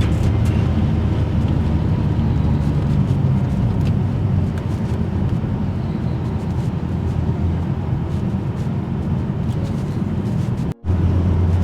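BMW E92 335i driving, its engine and road noise a steady low drone; the sound cuts out for an instant about eleven seconds in and resumes.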